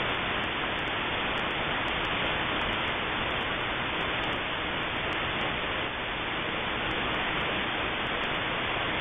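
Steady hiss of radio static from a web-based shortwave receiver in AM mode, tuned to an empty spot in the 11-metre CB band with no station coming through.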